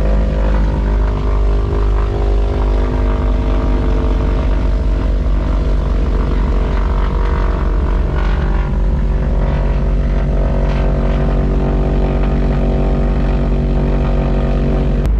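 Propeller engines of a small twin-engine plane running steadily, a loud even drone with a low rumble, heard from inside the cabin.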